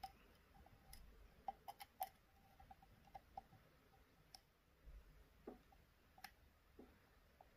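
Faint, irregular little clicks and ticks of a lock pick working the pins of an Assa D12 v2 lock cylinder under tension, going after the security pin. The clicks come thickest in the first two seconds, then only now and then.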